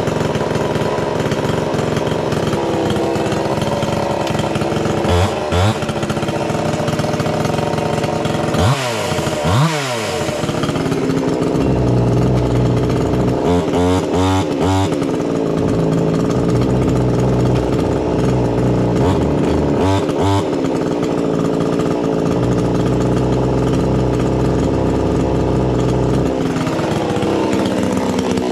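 Supmix 62 cc two-stroke chainsaw running loud on its first start, idling a bit high by the owner's account. The throttle is blipped several times, with a quick run of revs about halfway through and more near the end.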